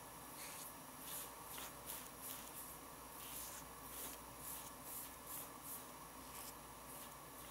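Fingers rubbing shaving foam over the face: faint brushing strokes, about two a second, over a low steady hiss, thinning out near the end.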